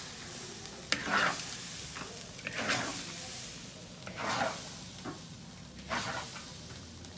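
Metal spatula scraping and turning food in a wok over sizzling oil, four strokes about a second and a half apart, the first opening with a sharp clack.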